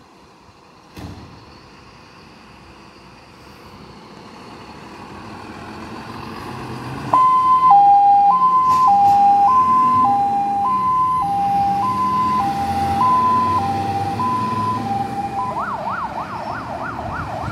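Mercedes-Benz Atego fire engine pulling away, its diesel engine building, then its siren switching on suddenly about seven seconds in with a two-tone hi-lo pattern. Near the end the siren changes to a fast rising-and-falling yelp.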